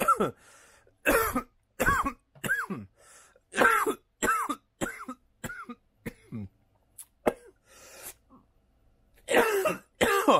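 A man's coughing fit: about a dozen harsh coughs in short bursts, with the loudest run near the end. He is coughing from a hit of smoke off a joint that was bigger than he expected.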